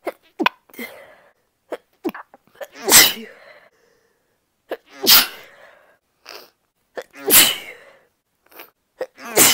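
A woman sniffling in short quick breaths, then sneezing three times about two seconds apart, with short sniffs between the sneezes and another sneeze starting at the very end. The first sneeze is the loudest. The sneezes are deliberately induced.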